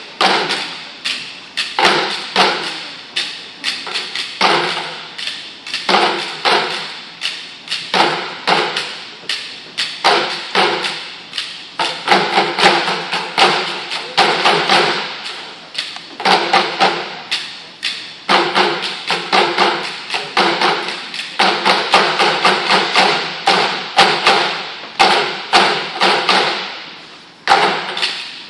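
School percussion ensemble beating a fast, steady rhythm on large plastic buckets with sticks, sharp clicks over hollow thuds, echoing in a gymnasium.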